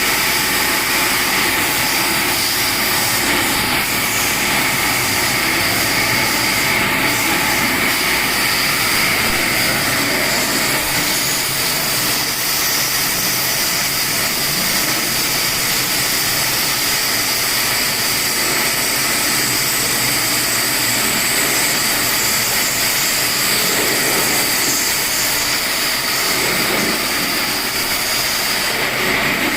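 CNC milling machine cutting aluminum: a loud, steady hiss with several high, even whining tones that hold without change.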